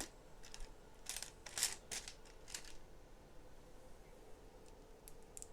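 Small plastic Lego Technic pieces clicking and rattling as they are handled: a run of sharp clicks and rustles in the first three seconds, then a few faint ticks near the end.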